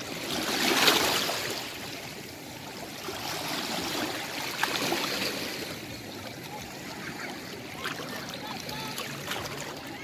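Seawater washing and trickling among shoreline rocks, swelling to a louder rush about a second in.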